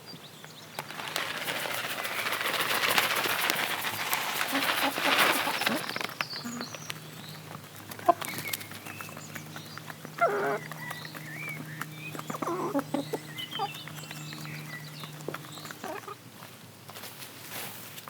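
Farmyard hens and songbirds. A dense rustling patter with many small clicks runs for the first five seconds or so, then short bird calls and chirps follow over a faint steady low hum.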